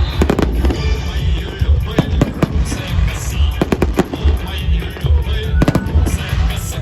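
Fireworks salute going off: many sharp bangs and pops in quick, irregular succession over a constant deep rumble of shell bursts.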